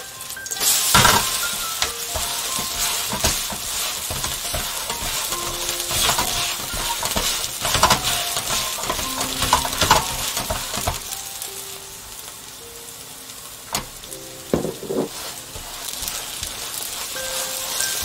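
Vegetable pancake (yachae-jeon) frying in a nonstick pan, sizzling steadily while a wooden spatula scrapes and presses it against the pan. A loud surge of sizzling about a second in comes as the pancake is flipped back into the pan.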